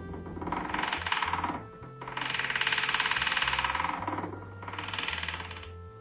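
Kitten making a fast rattling rumble in three long bursts, with short breaks between them, over background music.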